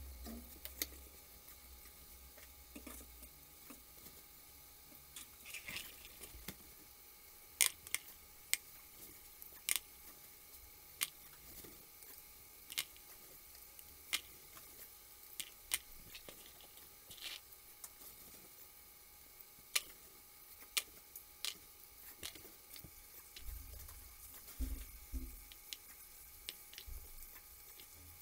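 Fresh green pea pods being split open by hand and the peas dropping into a plastic bowl: irregular sharp clicks and snaps, roughly one a second.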